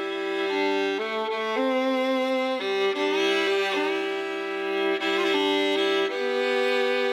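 Fiddle playing sustained notes over a chordal backing: a country song's instrumental passage, no singing.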